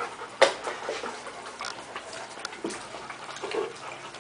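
Bullmastiff puppies lapping water from a bowl: an irregular run of small wet clicks and splashes, with one sharp knock about half a second in.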